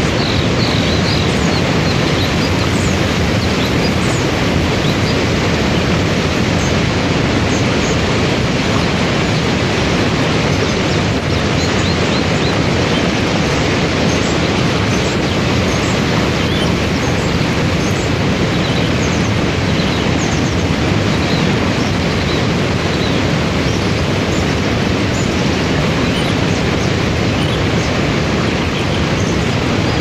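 Waterfall and rapids rushing in a steady, even noise, with faint short high chirps scattered through it.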